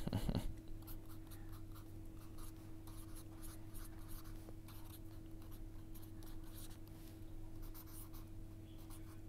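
Pen writing on the paper page of a small notebook: a run of short scratchy strokes as words are written out, over a steady low hum. There is a brief low thump right at the start.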